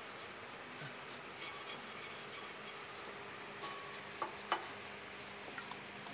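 A small hand wire brush scrubbing back and forth on the engine block's sump mating surface, scouring off old hardened silicone sealant. Two sharp clicks a little past four seconds in.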